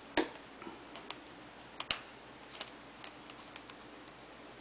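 Scattered light metallic clicks and ticks from a 3/32 hex driver working the front end bell screws out of a Tekin T8 Redline 1/8-scale motor. The loudest click comes just after the start, with two more close together about two seconds in.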